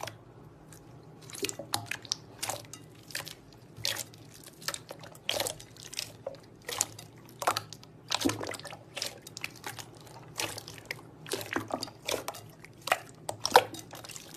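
Slime being squeezed and poked, making a run of short wet pops and clicks at uneven spacing, about two a second.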